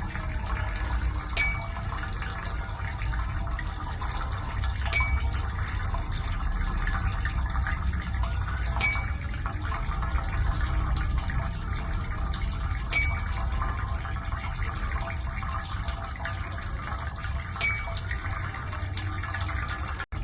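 Ear-cleaning equipment running with a steady watery gurgle over a low rumble, broken by a short sharp click roughly every four seconds.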